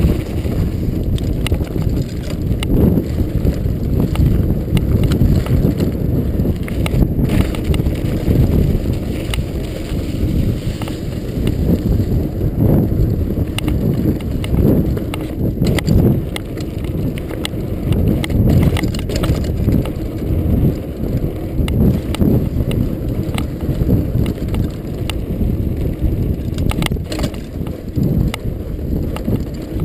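Norco Storm hardtail mountain bike on 26x2.5 Continental Mountain King tyres running fast down a dirt trail: a loud, continuous low rumble of tyres on dirt and rushing air, with frequent clicks and rattles as the bike goes over bumps.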